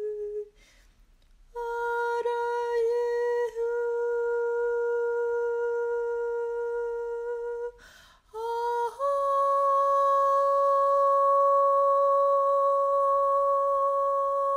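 A woman's voice toning long hummed notes: one note held for about six seconds, a brief break for a breath, then a slightly higher note held steadily.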